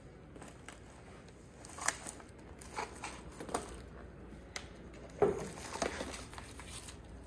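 Photo albums and picture frames being handled: a handful of short rustles and light knocks, the loudest a little past halfway.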